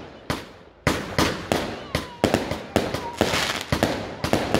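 A multi-shot firework cake firing: sharp bangs in rapid succession, about three a second and quickening, each trailed by a crackling hiss as the shots burst overhead.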